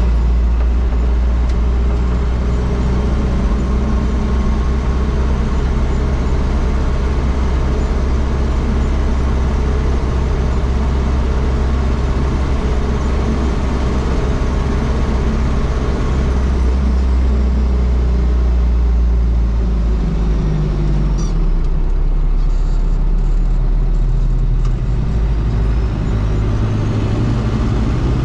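1987 Toyota Land Cruiser BJ73's turbocharged 13B-T four-cylinder diesel engine running steadily on the move, with road noise. About two-thirds of the way through the engine note drops as the throttle eases, then it rises again near the end.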